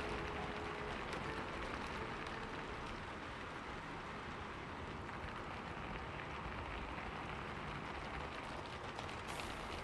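Steady crackling hiss of a wood fire, with a low rumble underneath, during a pause in the piano.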